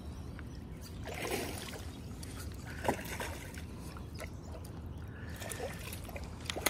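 Hooked smallmouth bass splashing at the water's surface as it is played in close, over steady lapping water, with a sharp tap about three seconds in and another near the end.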